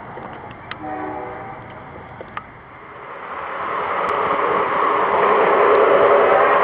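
A short train horn sounds about a second in. Then, from about three seconds, a model train runs past on its track with a rolling rumble that grows steadily louder.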